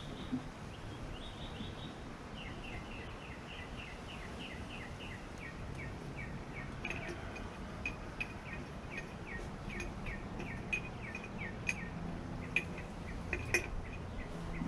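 A bird calling: a long series of short, falling chirps, about four a second, over faint background noise, with scattered faint clicks from about seven seconds in.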